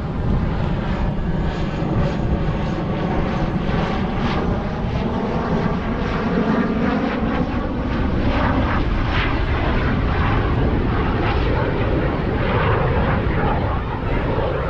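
Steady, loud wind rumble buffeting the camera microphone during a bike ride.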